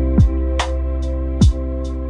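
Instrumental background music with a steady beat: sustained notes over regular drum hits.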